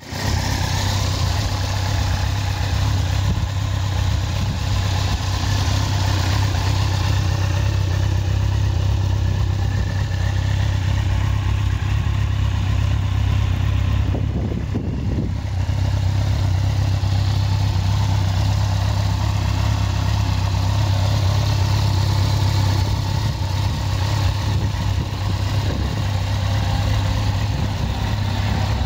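2010 Kawasaki ZX-10R's inline-four engine idling steadily through an Akrapovic exhaust.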